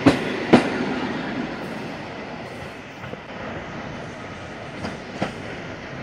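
Electric multiple unit train running past close by, its wheels giving two sharp clunks over rail joints just after the start. The running noise fades as it draws away, and two lighter clacks come near the end.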